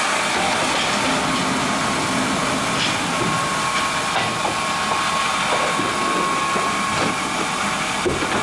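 Mebor HTZ 1300 horizontal band sawmill running with a steady whirring hiss, and a thin steady whine joining about three seconds in.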